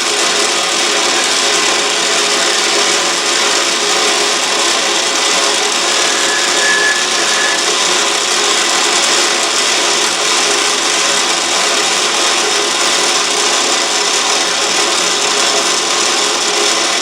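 Autobox 8x16 mini metal lathe running steadily, its cutting tool scraping against the face of the spinning workpiece during a facing cut.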